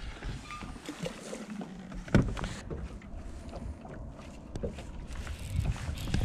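Fishing-boat ambience: a steady low rumble of wind and water, with one sharp knock about two seconds in and a few light clicks of rod and reel handling.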